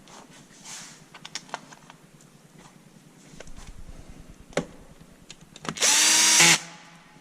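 Light clicks and knocks of parts being handled, then a power drill-driver runs in one short burst of under a second, its motor pitch falling as it stops.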